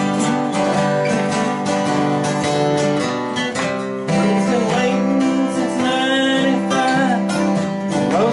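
Several acoustic guitars strumming a country tune together in an instrumental break, with a melody line bending over the chords.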